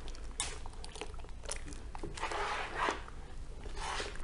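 Homemade liquid soap being stirred in a plastic basin with a plastic utensil: uneven swishing strokes of the foamy mixture, the longest a little past the middle, with small clicks of the utensil against the basin.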